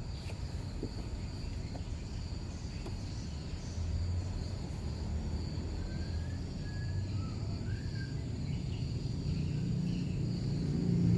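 Outdoor ambience: a steady high insect trill over a low rumble, with a few short bird chirps about six to eight seconds in.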